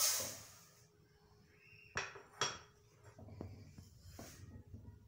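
Granulated sugar poured from a bowl into a steel saucepan, a hiss of grains that fades within about a second, followed by two short clinks of dishes about two seconds in.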